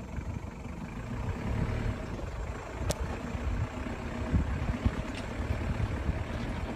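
Diesel 4x4 driving slowly over a rough, stony riverbed: a steady low engine and drivetrain rumble with occasional sharp knocks and clicks.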